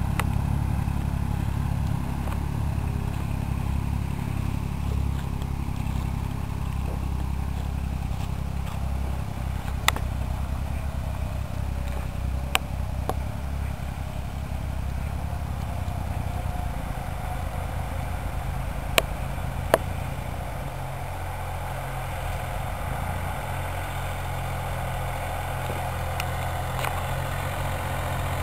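Farm tractor engines running steadily as they pull ploughs through a field, a continuous low drone. Four short, sharp clicks cut through it.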